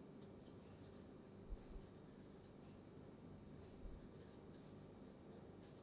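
Marker pen writing on paper: faint scratchy strokes as the letters are drawn, with a few soft low bumps, the first about a second and a half in.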